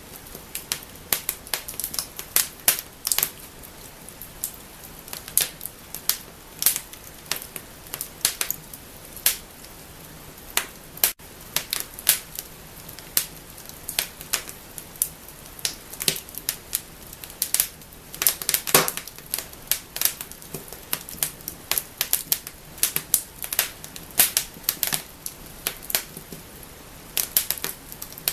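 Wood fire in a fireplace crackling and snapping: irregular sharp pops over a soft hiss, with a burst of louder snaps a little past the middle.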